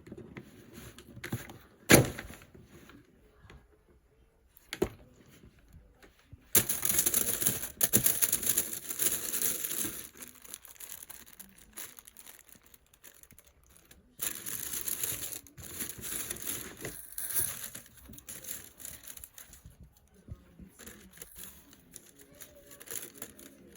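Shoe packaging being handled and unwrapped, crinkling: a sharp knock about two seconds in and a smaller one near five seconds, then two long spells of dense crinkling a few seconds apart, with softer rustling after.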